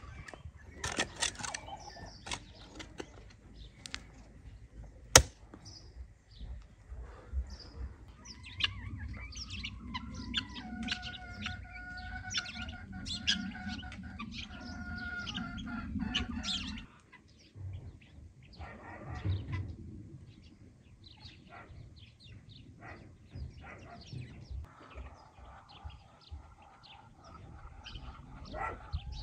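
Birds chirping and calling, with a longer held call in the middle and a single sharp click about five seconds in.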